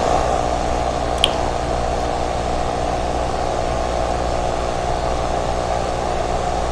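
Steady droning hum of several fixed low tones over a noise haze, with one small click about a second in: the ambient drone of a horror animation's soundtrack.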